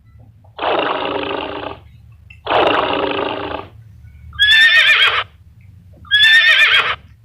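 Recorded animal calls: two long, rough calls in the first half, then two short, high, wavering horse whinnies.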